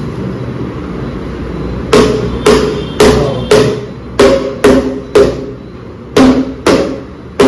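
Shoe rack parts being knocked together with hammer blows, about two sharp strikes a second with a few short pauses, each strike ringing briefly.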